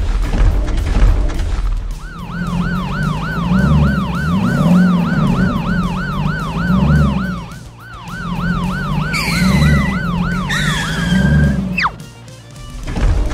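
Police siren sound effect in a fast yelp, wailing up and down about three times a second. It starts about two seconds in and stops near the end, over background music. Two short screeching bursts come near the end.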